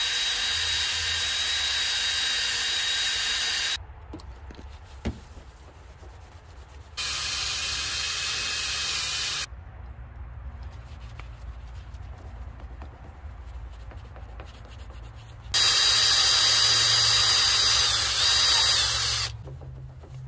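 Drill spinning a rubber valve stem against the truck's body panel, used as an eraser wheel to rub off leftover adhesive residue. It runs with a steady whine in three bursts, about four seconds, two and a half seconds and four seconds long, with short pauses between them.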